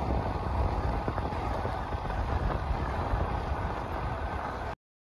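Wind rumbling on the microphone as the camera moves along the road: a steady low rumble with hiss that cuts off suddenly near the end.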